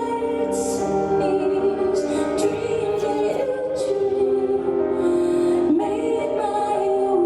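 Live music: a woman singing long, held notes over instrumental accompaniment.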